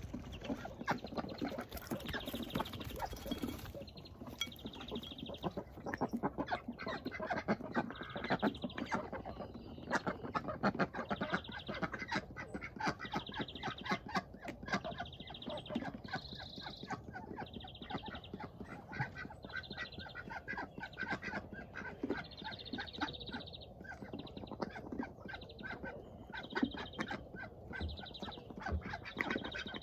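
A small flock of domestic ducks dabbling and pecking close by, with many quick bill clicks and snaps and low, soft quacking and chatter. A high trill repeats about every second and a half.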